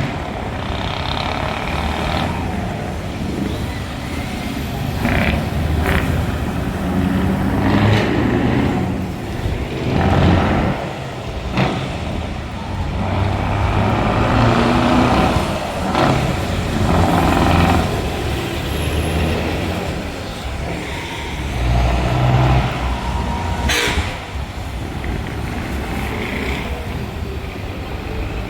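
Open-piped V8 truck engines revving loudly in repeated surges, with several sharp air hisses, the strongest near the end.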